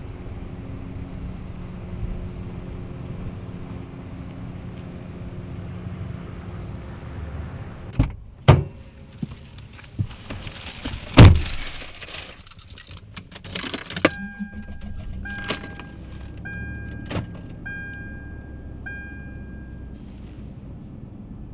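A car door opening and being slammed shut, with knocks, keys and rustling as the driver settles in. Then the car's warning chime dings about once a second for several seconds.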